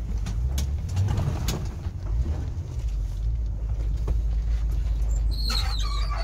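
A 200 Series Toyota Landcruiser creeping along a narrow bush track, heard from inside the cabin as a steady low rumble, with scattered clicks of branches striking the body. About five seconds in, a branch drags along the side with a high, wavering screech: the scrub scraping the paintwork that leaves bush pinstripes.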